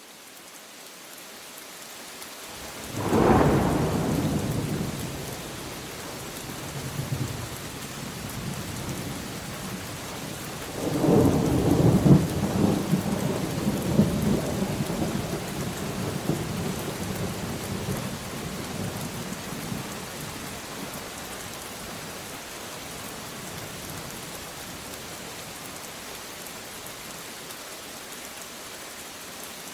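Thunderstorm: steady rain falling, fading in at the start. A sudden thunderclap about three seconds in rumbles away over a few seconds, and a longer rolling peal of thunder begins about eleven seconds in and rumbles with several cracks before settling back under the rain.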